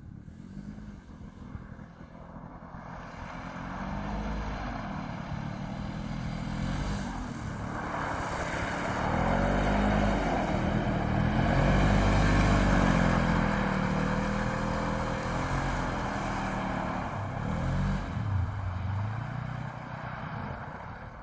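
Polaris RZR 900 Trail side-by-side's engine revving as it drives on the ice, its pitch rising and falling with the throttle. It grows louder as the machine comes close about halfway through, then fades as it moves away.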